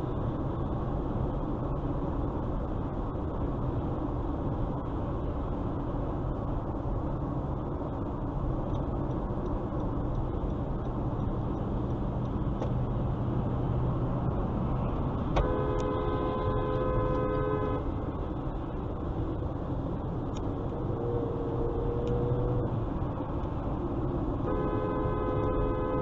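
Steady road and engine noise inside a car at highway speed, with a car horn held for about two seconds just past the middle and again near the end, sounding a warning at a driver who cut in dangerously.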